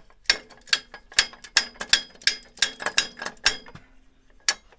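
Jacobs Rubber-Flex collet chuck on a metal lathe being tightened around a snowmobile drive clutch: a run of sharp metallic clicks, about two or three a second, each with a brief ringing note, then a single click near the end.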